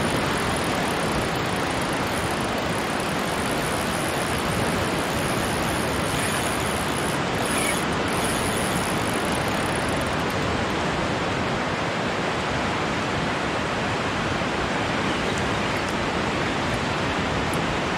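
Steady, even rushing noise of surf and wind on the beach.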